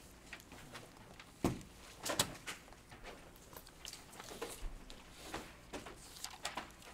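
Scattered light clicks and knocks in a small room, with two sharper knocks about one and a half and two seconds in.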